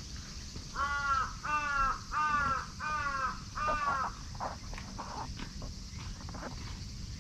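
A crow cawing five times in a quick, even series, the caws a little over half a second apart, followed by a few faint ticks.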